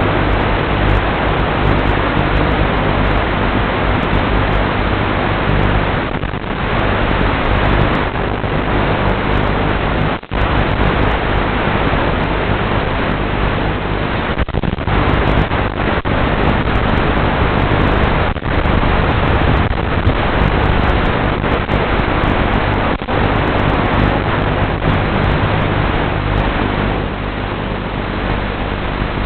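Loud, steady hiss of radio static from a 5.8 GHz analog FPV video receiver, recorded through the goggles, with a faint low hum under it. The hiss dips briefly a few times, most deeply about ten seconds in.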